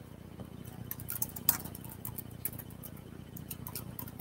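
Faint scattered light clicks and taps, one a little louder about a second and a half in, over a faint steady hum.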